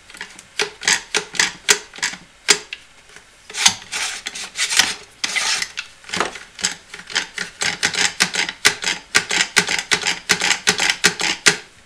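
Harbor Freight one-handed bar clamp being ratcheted by squeezing its pistol-grip trigger over and over, each squeeze a short rasping click as the jaw creeps along the bar. The strokes come irregularly at first, then steadily at about three to four a second in the second half.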